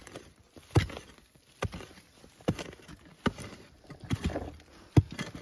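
A hoe chopping into packed earth again and again, about seven dull strikes roughly one every 0.8 seconds, digging out a bamboo shoot.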